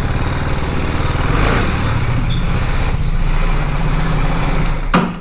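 BMW adventure motorcycle's engine running at low speed, rising slightly about a second and a half in, then switched off abruptly just before the end.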